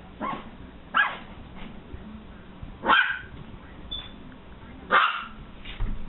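Small dog barking: about five short, sharp barks spaced a second or two apart, the loudest three in the middle of the run.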